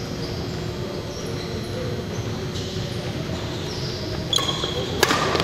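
Steady murmur of a large sports hall, then near the end sneakers squeak on the hardwood court and a racket strikes a shuttlecock with a sharp crack.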